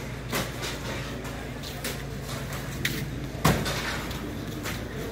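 A parked refrigerated truck idling with a steady low hum, with several sharp knocks and one loud thump about three and a half seconds in.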